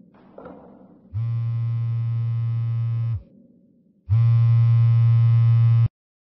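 Mobile phone vibrating in a coat pocket for an incoming call: two long, steady, low buzzes of about two seconds each, the second louder.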